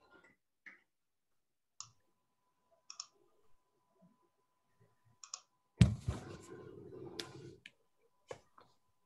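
Scattered sharp clicks picked up through a video-call microphone. A louder thump comes about six seconds in, followed by about two seconds of rustling handling noise, then a few more clicks. A faint steady high tone runs underneath.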